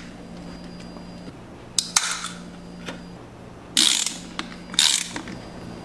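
Pipe wrench twisting the cap off a plastic Coca-Cola bottle: ratcheting, clicking turns of the tool, with three short hissing bursts about two, four and five seconds in.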